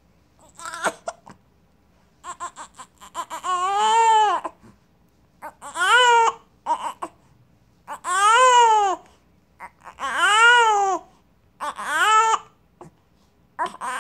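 A baby with the hiccups crying: about one wail every two seconds, each rising and then falling in pitch, with short sharp hiccup sounds between the wails.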